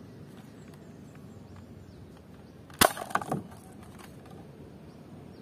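Toy dart blaster fired at paper cups: one sharp snap, then a few light knocks as the foam dart hits the cups and they tip over.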